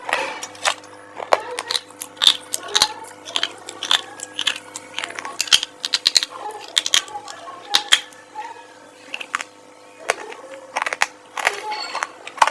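Close-up crunching of crisp food being bitten and chewed: many sharp, irregular cracks and crackles, several a second, over a quieter background with a steady tone.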